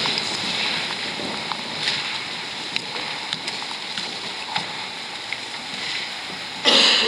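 A congregation rising and shuffling in wooden pews: a steady rustle of clothing and movement with scattered small knocks and clicks, and a short, louder rustle or bump near the end.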